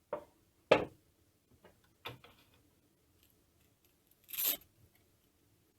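A few short knocks from RC airplane parts being handled, then a short rip as a hook-and-loop battery strap is pulled open, about three-quarters of the way through.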